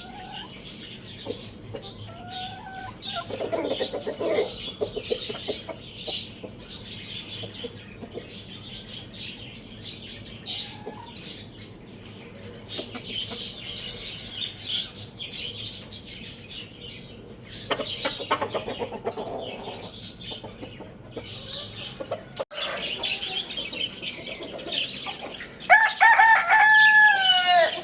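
Chickens clucking amid scattered short chirps and scratchy clicks, then a rooster crowing loudly near the end, one long call that falls in pitch as it ends.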